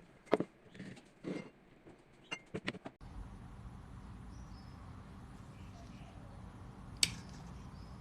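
Light clicks and taps, as of a small kettle being handled. About three seconds in they give way to a steady low hum, with one sharp click about seven seconds in.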